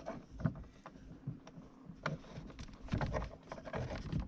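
Scattered light clicks and knocks of plastic parts being handled as a refrigerator ice maker's coil is pushed back into place.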